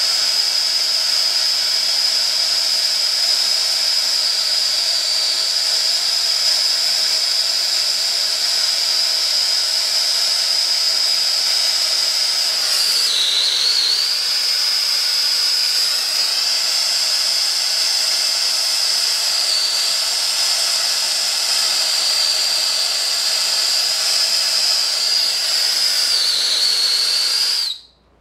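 Acetylene brazing torch flame burning with a steady, loud hiss and a high whistle, while copper pipe is brazed. The whistle dips briefly twice, and the sound cuts off suddenly near the end.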